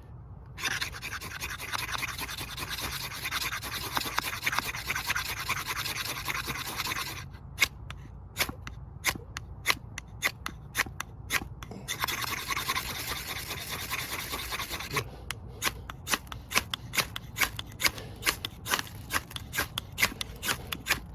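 Fat Boy ferrocerium rod scraped with a striker: a long steady rasping scrape, then a run of quick separate strikes about three a second, another long scrape, and a second run of strikes.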